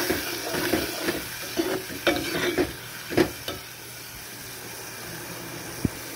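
Metal spoon stirring liver curry in an aluminium pot, clinking and scraping against the pot several times in the first half, the loudest clink about three seconds in. Under it runs a steady sizzle of the curry cooking.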